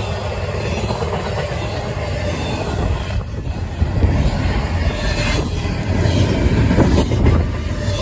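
Double-stack intermodal freight train's well cars rolling past close by: a steady rumble of steel wheels on rail with a few sharp clacks, a little louder from about halfway.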